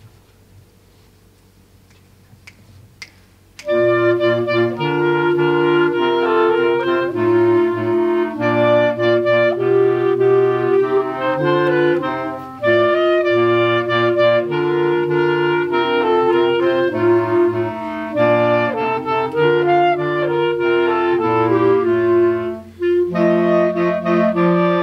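Clarinet choir, including a bass clarinet, coming in together about three and a half seconds in after a few faint clicks, then playing sustained chords in several parts. The sound drops briefly twice, near the middle and shortly before the end.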